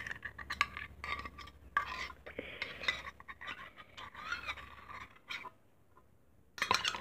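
Metal spoon scraping and clinking against a stainless steel measuring cup as thick glue is scraped out into a bowl. The sound is irregular scrapes and clicks that stop about five seconds in, then a few more clinks near the end.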